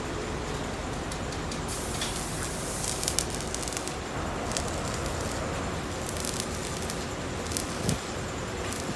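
Arc welding steel floor plate onto a truck bed: a steady crackling hiss with occasional sharper pops.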